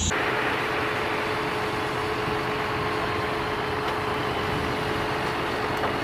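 Concrete mixer truck's diesel engine running steadily: an even engine noise with a thin, steady hum at one pitch over it.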